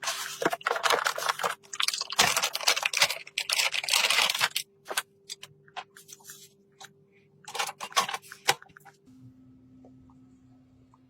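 Hands handling computer parts and packaging: a dense stretch of rustling and crackling with sharp clicks, scattered clicks, and another short rustle, then only a faint steady hum with light ticks for the last two seconds.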